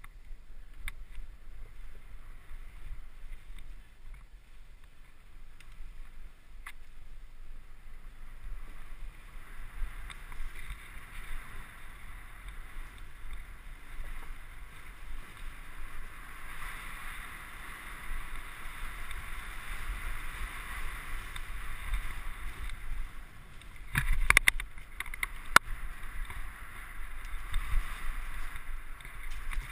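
Mountain bike riding fast over a wooden boardwalk and dirt trail: a steady rush of wind and tyre noise with the bike rattling, and a few sharp knocks about 24 seconds in as it hits bumps.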